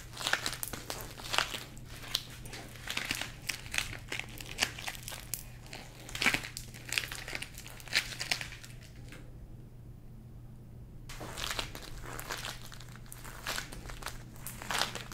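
Warm pulled sugar being stretched and folded by gloved hands, giving irregular sticky crackles and crinkles. The crackling stops briefly about nine seconds in, and a steady low hum runs underneath.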